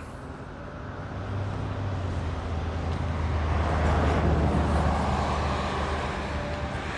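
Car driving along a road: a steady low engine hum with tyre and road noise, growing louder toward the middle and easing off again.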